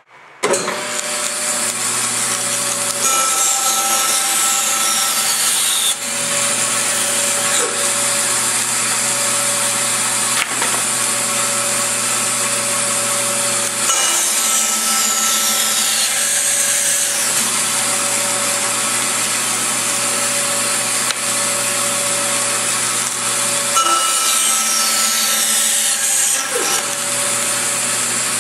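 A power saw running and cutting wood in repeated passes, loud and steady. It starts abruptly about half a second in.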